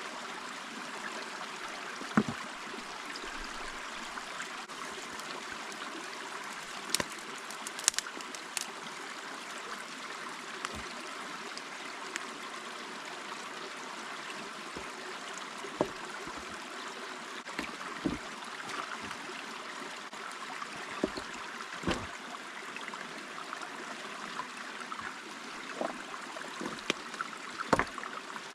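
Creek water running steadily, with scattered short sharp knocks from the work of damming the creek around a water-pipe inlet.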